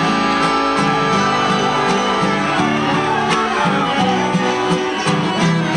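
Live instrumental music on accordion and acoustic guitars. Sustained accordion chords sit over strummed strings and a bass line that steps from note to note.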